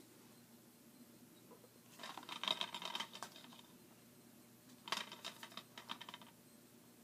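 DVD and Blu-ray cases being handled and turned over by hand: two bursts of quick plastic clicks and scraping, about two seconds in and again about five seconds in.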